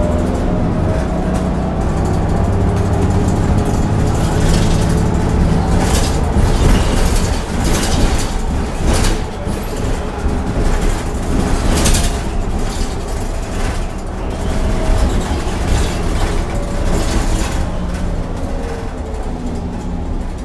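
Heuliez GX 337 city bus with a ZF automatic gearbox under way, heard from inside: a steady engine drone with a faint drivetrain whine that rises in pitch at the start and falls again near the end. A run of knocks and rattles comes through the middle.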